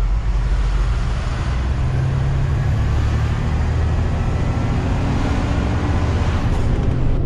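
Hino 500 truck's diesel engine running under way, heard from inside the cab as a steady low drone over tyre and road noise, its pitch shifting slightly a couple of times.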